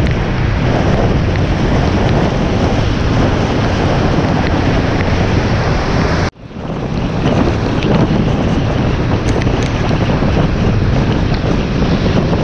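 Steady, loud rush of wind buffeting a hood-mounted action camera on a car at speed, mixed with tyre spray hissing on rain-soaked pavement. The sound cuts out abruptly about six seconds in, then builds back up over about a second.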